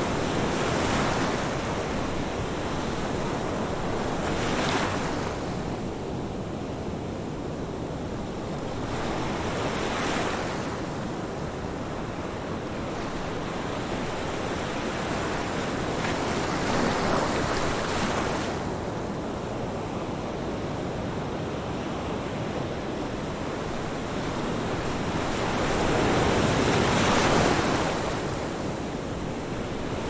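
Ocean surf: a continuous rush of water that swells each time a wave breaks and washes in, every few seconds, with the biggest wash near the end.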